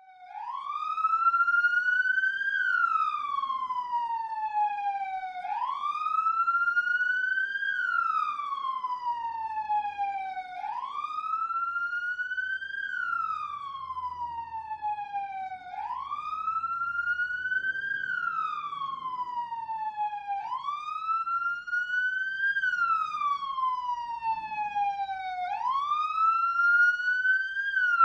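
Police siren in wail mode: a pitched tone that climbs and then slides back down slowly, repeating about every five seconds.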